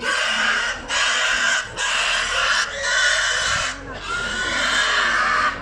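A pig squeals loudly in five long screams in a row with short breaks between them, the last one the longest. It is the squealing of a pig restrained for a ritual animal offering.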